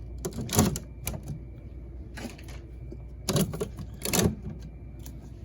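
Bottles of water knocking against each other and the shelves as they are pushed into a mini fridge, about four separate clunks spread over a few seconds.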